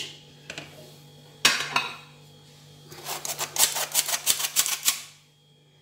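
A single clink, then a round dough cutter rattling and tapping quickly against a paper plate of flour for about two seconds as it is dipped in the flour.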